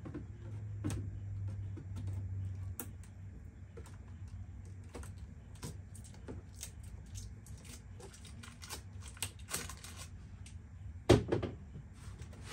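Hands opening a cardboard box: scattered clicks, taps and scratches of cardboard and packing as the lid and tape are worked, with a dull thump near the end as the box is turned.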